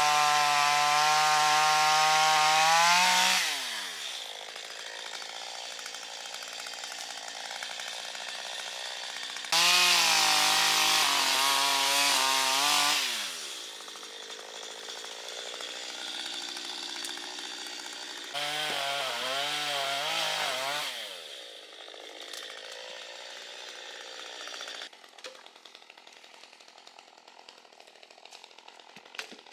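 Chainsaw cutting timber: three times it runs at high revs, each run dropping away as the throttle is let off, with quieter running in between. It goes quieter still near the end.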